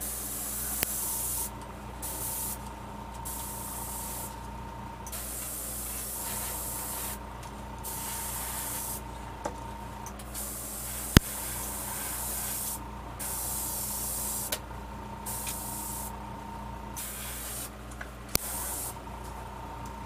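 Airbrush spraying paint onto a fishing lure, a hiss that starts and stops in repeated short bursts as the trigger is worked. A faint steady whine runs underneath, and there is a single sharp click about eleven seconds in.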